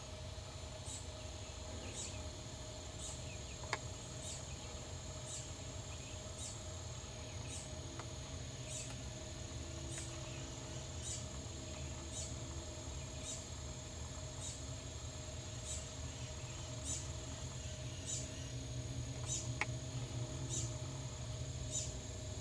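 Insects calling: a steady high-pitched trill with a short chirp repeated about once a second, over a low rumble. Two faint clicks sound, one a few seconds in and one near the end.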